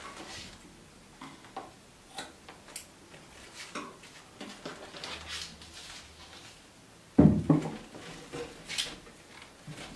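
Small clicks and scrapes of things being handled on a wooden OSB board, then a heavy wooden thump about seven seconds in as the board is tipped upright on the table, followed by a few lighter knocks.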